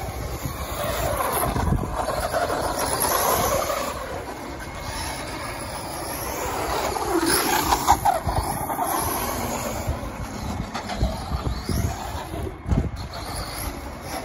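Kyosho Monster Tracker 2.0 1/10 RC monster truck driving on asphalt: its brushless electric motor and tyres make a noise that swells twice, in the first few seconds and again around the middle, with a few short low knocks near the end.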